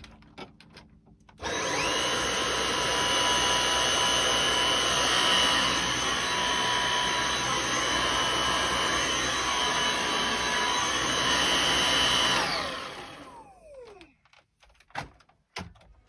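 Dyson cordless stick vacuum cleaner switched on about a second and a half in, running steadily with a high whine over its airflow. Near the end it is switched off and spins down, its whine falling in pitch as it stops.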